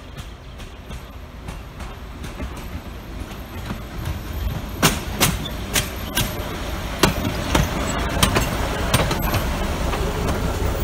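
Mk48 narrow-gauge diesel locomotive approaching and passing close, its engine's low rumble growing steadily louder. From about five seconds in come sharp, uneven clacks from the wheels on the track.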